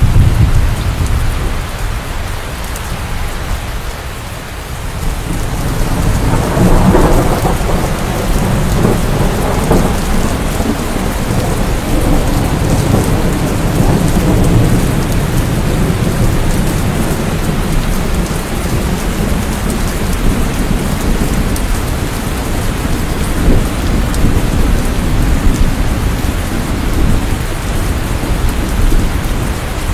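Steady rain falling, with low thunder rumbling underneath; a roll of thunder swells about six seconds in and fades over the following few seconds.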